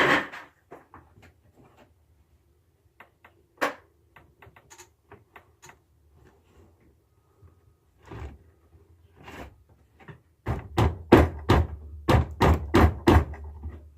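Hand work on metal parts, scattered small clicks and knocks as a blade is worked onto its mounting bolt, then a quick run of about ten sharp knocks near the end.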